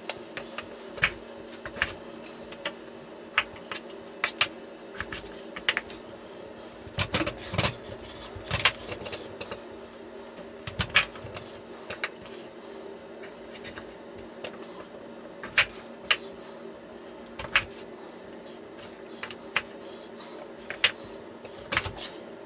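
A chef's knife chopping peeled cassava root into chips on a cutting board: irregular sharp knocks of the blade striking the board, roughly one or two a second, over a steady background hum.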